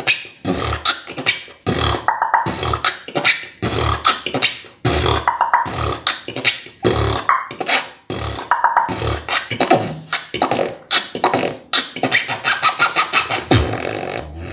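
A person beatboxing a rhythmic pattern: low bass-drum kicks and sharp snare-like clicks, with short high-pitched squeaks woven in. The squeaks are the beatbox 'high pitch zipper' or 'mouse squeak' sound.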